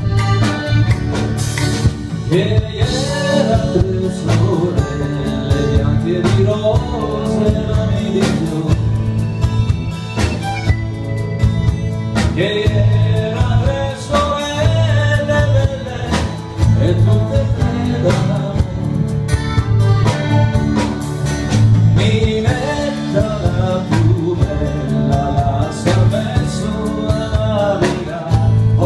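A man singing with a live band: accordion, guitars and drums keep a steady beat under his voice.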